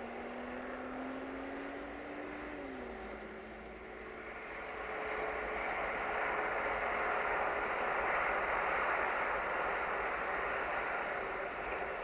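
Articulated lorry passing on a road, its tyre and engine noise swelling from about four seconds in and staying loud. Before that a faint engine tone rises slowly, then drops in pitch about three seconds in.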